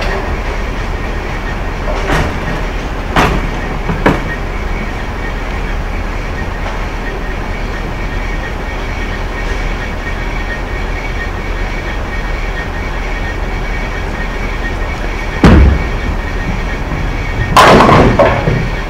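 Bowling alley din: a steady rumble of balls rolling and pinsetting machinery, with a few knocks in the first few seconds. About three-quarters of the way through a bowling ball lands on the lane with a heavy thud, and near the end the pins crash.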